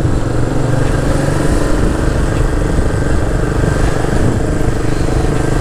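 A motorcycle engine running at a steady cruising pace, heard from a handlebar-mounted camera, with a steady rush of wind and road noise over it.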